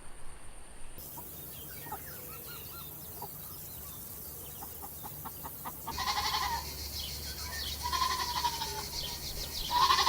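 Farm animal calls: faint short chirps through the first half, then three short bleat-like calls about two seconds apart from about six seconds in.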